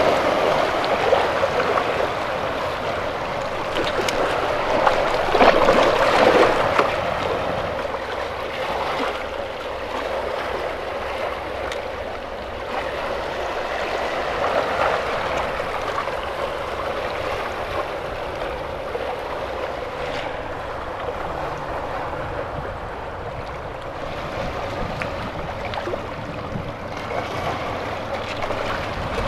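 Small waves washing and sloshing among the rocks of a breakwater, a steady rush of water that swells a little about five seconds in.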